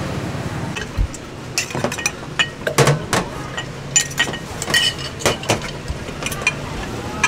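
Metal spoon clinking against glass jars and glasses as chopped pickled chilies are spooned out: a quick, irregular series of sharp, ringing clinks from about a second in until near the end.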